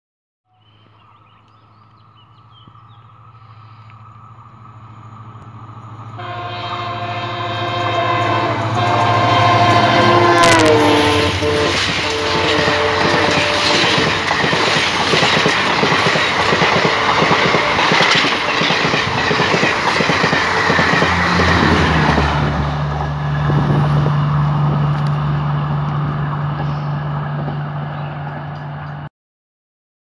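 An EMD diesel locomotive approaches with its engine drone growing louder. About six seconds in it sounds its horn, a chord of several tones held for some seconds, which drops in pitch as the locomotive passes. Then the ICF AC coaches roll by with steady wheel-and-track noise and a low hum until the sound cuts off suddenly near the end.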